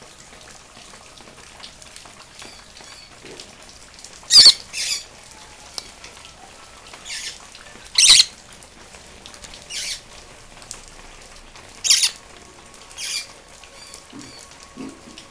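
A small green parrot bathing in a shallow tray of water, beating its wings and splashing in short bursts every second or two. The loudest splashes come about four and eight seconds in.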